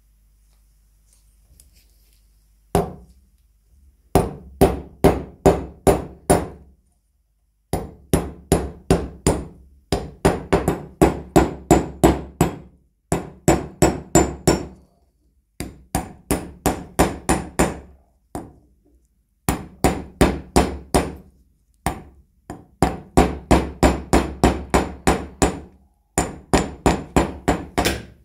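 A hammer striking old rusty nails against a small steel anvil to straighten them. The blows come in quick runs of about three a second, broken by short pauses.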